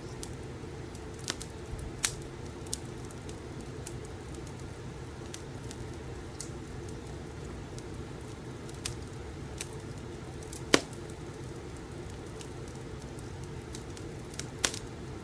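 Crackling wood fire: a steady low rumble with sharp pops and snaps at irregular intervals, the loudest about eleven seconds in.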